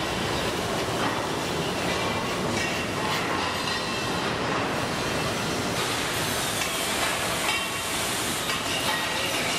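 Steady din of factory machinery, with occasional light clinks of metal castings being handled.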